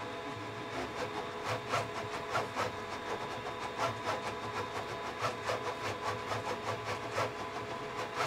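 HevORT 3D printer's XY gantry, driven by Teknic ClearPath servo motors, making fast short moves at 20,000 acceleration: a steady whine of several tones, with quick, uneven surges of motor and belt noise a few times a second as the head snaps through changes of direction.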